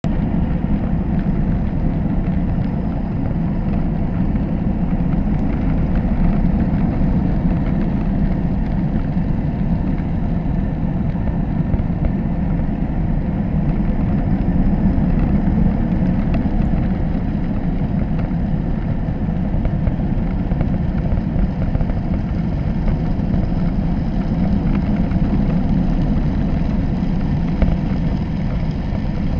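Steady low underwater rumble of a trawl net under tow: water rushing past a camera housing fixed in the net mouth, even throughout with no separate knocks.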